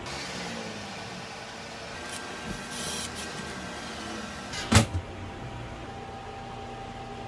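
Handling noise from work on a circuit-breaker panel on a perforated metal base plate: light rustling and clatter, then one sharp knock about three-quarters of the way through, over a faint steady hum.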